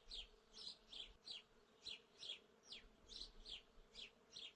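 Faint, short high chirps repeating about two or three times a second, each falling slightly in pitch: background chirping from small creatures, insects or birds.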